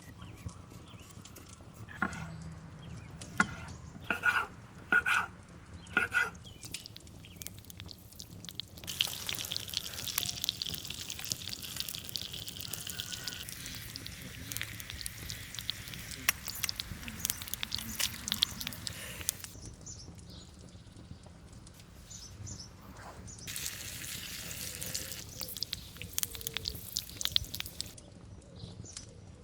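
Food sizzling in a cast-iron serving pan over a campfire, a dense crackling hiss that comes in two long stretches, each starting and stopping abruptly. Before it, a few sharp metallic clinks ring out.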